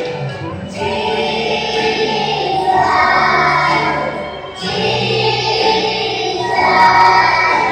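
A group of young children, three and four years old, singing a song together in chorus. The phrases break briefly about a second in and again about halfway through.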